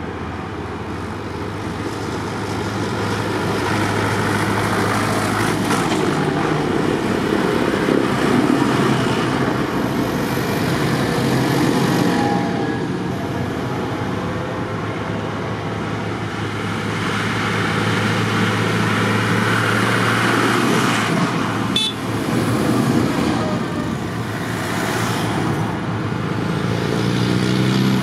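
Diesel farm tractors on a tractor run passing along a country road one after another, engines running and tyres on tarmac, growing louder and fading as each goes by. A Land Rover Defender pickup comes close near the end.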